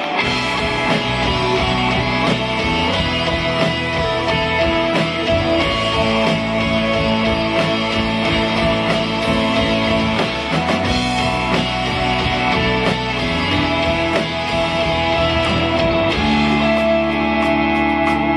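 Live rock band playing with electric guitar, keyboard and drums, the whole band coming in together at once. The arrangement moves into a new section about sixteen seconds in.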